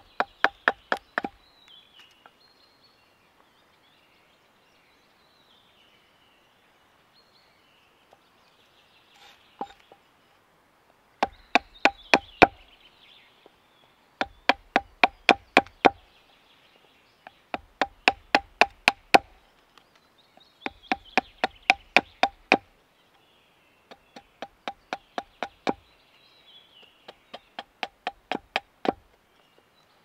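Small hatchet striking a wooden stick held on a wooden chopping block while shaping a wooden nail: bursts of quick, sharp knocks, about five a second, with pauses between bursts and a long lull early on.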